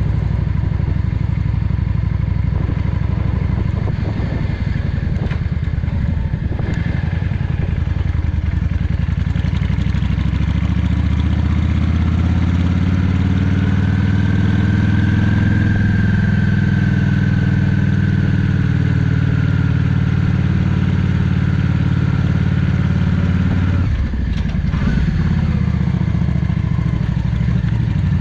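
Yamaha XVS 650 Drag Star Classic's V-twin engine running under way, heard from the rider's helmet. Its pitch rises gradually as the bike pulls along, holds, then drops off sharply about four seconds before the end.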